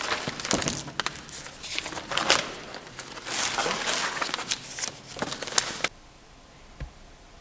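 Old, dry paper documents and cardboard folders being leafed through and shuffled: crisp, irregular rustling and crinkling of pages, stopping suddenly about six seconds in.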